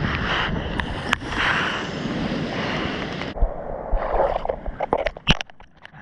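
Rushing water and wind on the microphone as the surfboard rides through breaking whitewater, cutting off abruptly about halfway. Then quieter sloshing and splashing water with a few sharp slaps near the end.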